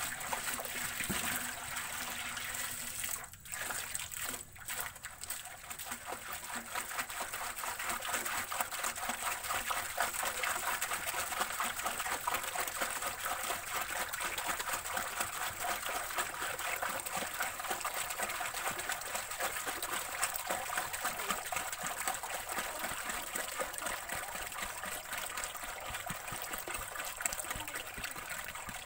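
Coconut sap pouring in a steady stream from a plastic jerrycan into a large wok already full of sap, splashing into the liquid. The pour briefly falters about three seconds in.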